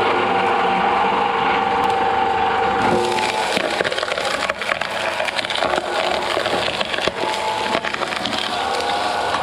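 Shredder machine running steadily, then from about three seconds in a dense run of cracking and crunching as material is fed through its cutters, settling back to its steady running near the end.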